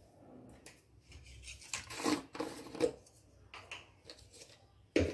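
Kitchen handling noises as spices are added: rustling and scraping of a spice container and spoon, with a few taps about two to three seconds in and a sharp knock near the end.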